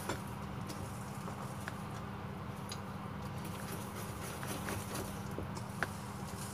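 Chocolate cake batter being stirred by hand in a stainless steel bowl: scattered light clicks and taps of the utensil against the metal, with a sharper click near the end, over a steady low hum.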